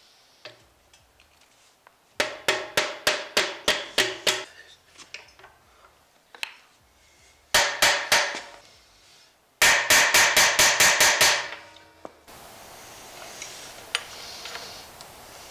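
A hammer strikes a metal bearing driver to tap a new axle bearing into the axle tube of a GM 9.5-inch 14-bolt axle, giving ringing metallic blows. They come in three runs: about nine quick strikes starting about two seconds in, three more around the middle, and a faster run of about eight a few seconds later.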